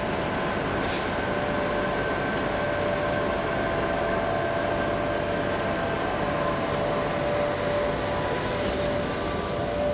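Class 86 electric locomotive standing with its cooling fans and electrical equipment running: a steady whir with a few held tones. It begins to creep forward near the end.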